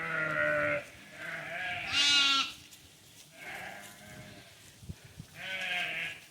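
Katahdin hair sheep bleating: about five separate calls, the loudest a wavering bleat about two seconds in.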